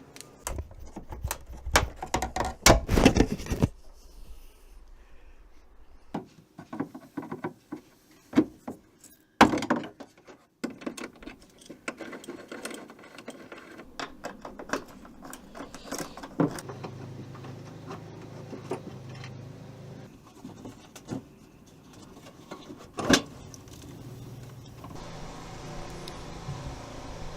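Clicks, knocks and metallic rattles of hand tools and plastic fasteners as a van's plastic wheel-arch liner is unfastened and pulled out, with a dense cluster at the start and a couple of single hard knocks later. A steady low hum comes in about two-thirds of the way through.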